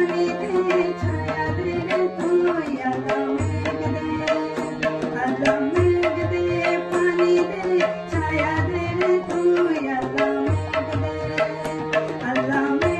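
A woman singing a Bengali folk song, holding long melodic notes over a steady tabla accompaniment with regular sharp strokes and deep bass-drum tones.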